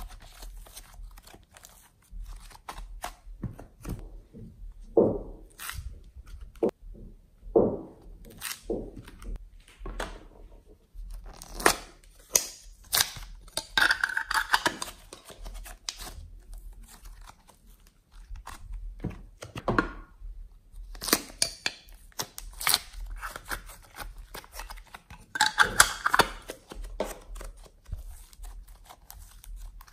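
Hands kneading, poking and stretching soft clay-mixed slime: sticky squelches, little pops and bursts of crackling snaps, with quieter gaps between.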